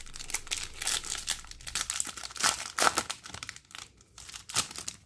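Foil Yu-Gi-Oh! booster pack wrapper crinkling and tearing as it is opened by hand, with irregular crackles throughout.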